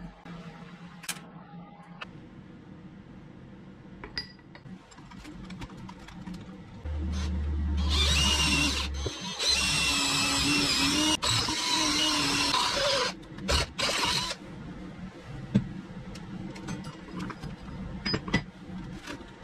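Cordless drill boring into a steel square tube clamped in a vise: a loud, high-pitched cutting noise for about six seconds in the middle. Scattered clicks and knocks before and after.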